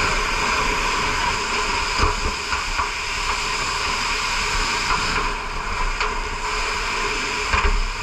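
Fire hose nozzle spraying water in a steady, loud hiss, with a couple of brief low knocks.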